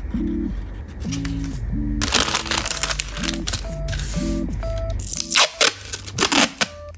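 Clear packing tape being pulled off its roll in several short, loud rips near the end, after baking paper rustles as it is smoothed flat on the table. Background music plays throughout.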